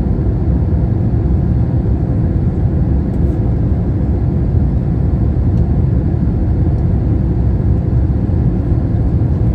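Steady cabin noise of a jet airliner on approach, heard from inside the passenger cabin: a deep, even rush of engines and airflow.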